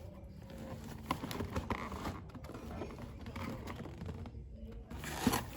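Hands handling hiking shoes and their packaging: irregular light knocks and rustling, with a sharper knock near the end.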